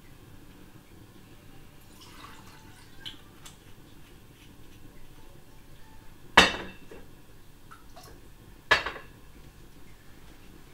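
Altar vessels clinking as they are handled at the preparation of the wine and water: faint small clinks and rattles, then two sharp clinks a little over two seconds apart, each ringing briefly.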